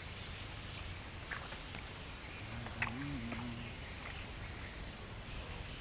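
Quiet outdoor background by a small creek, with two faint clicks a second and a half apart and a brief, faint hum-like tone around the middle.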